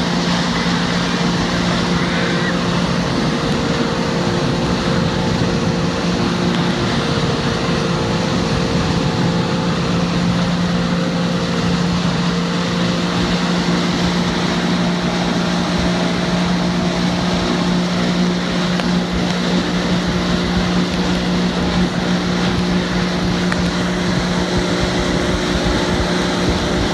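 Motorboat engine running steadily at speed with its wake water rushing.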